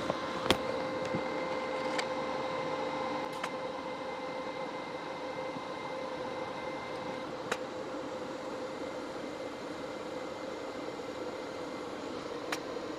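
Steady hum and hiss of a welding machine running, likely its cooling fan, with a few sharp clicks, the loudest about half a second in.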